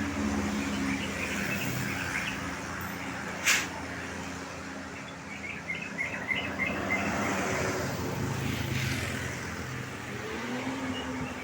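Road traffic: a vehicle engine running steadily with passing-traffic noise, and a single sharp click about three and a half seconds in. Small birds chirp a few times in the middle.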